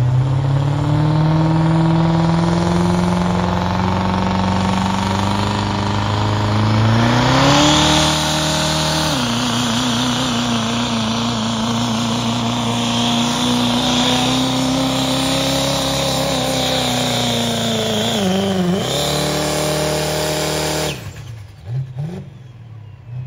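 Diesel pickup engine under full load pulling a weight-transfer sled. Its pitch climbs steadily, jumps higher about seven seconds in, then drops back and holds. Near nineteen seconds it dips and recovers, and about two seconds before the end the engine falls away quickly as the pull ends.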